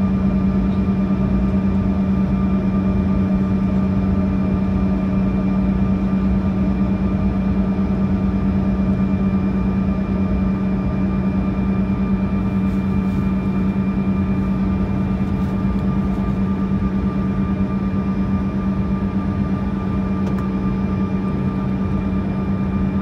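Steady cabin drone of a Bombardier CRJ-200 on the ground, heard from inside the cabin: a loud constant low hum with fainter high whines over it, unchanging throughout.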